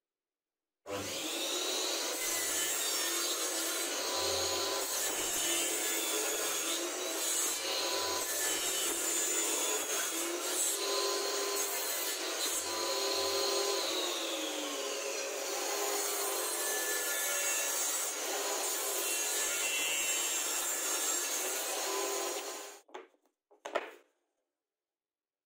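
Homemade table saw running and cutting through small plywood blocks, a steady loud saw noise. It cuts off suddenly near the end, followed by a couple of short clicks.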